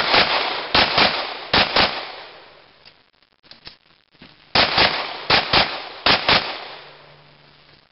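Handgun shots fired in quick pairs: three double taps in the first two seconds, a pause of about three seconds, then three more double taps.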